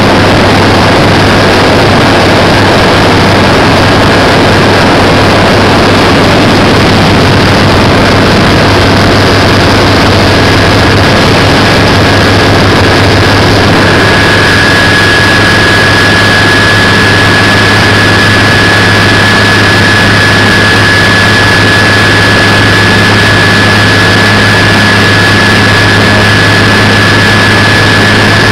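A Sanger boat's inboard engine running loud and steady while the boat cruises, with a thin high whine in the mix that grows stronger about halfway through.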